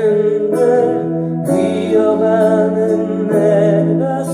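Recorded ballad playing: a male vocal line over sustained instrumental accompaniment.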